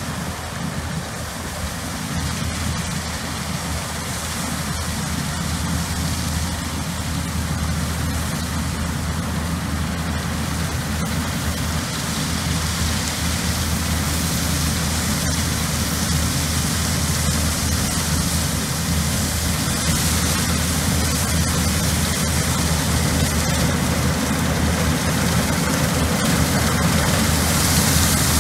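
Massey Ferguson 40RS combine harvester at work cutting oilseed rape: a steady low engine hum under a broad, even noise of the header and threshing machinery, growing gradually louder as the machine approaches.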